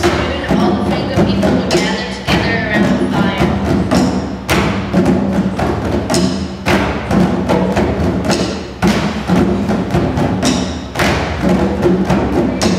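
Student percussion ensemble drumming: djembes and hand drums struck by hand, and large inflatable exercise balls beaten with drumsticks, in a busy steady rhythm of several strokes a second.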